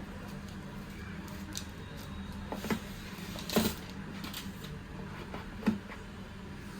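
Phone box and packaging being handled: a few short knocks and taps, the loudest about halfway through, over a steady low hum.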